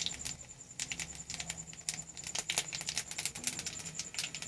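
Whole cumin seeds, bay leaves and whole garam masala crackling in smoking-hot mustard oil in a kadai, as the tempering (phoron) fries: a rapid, irregular run of small pops and sputters.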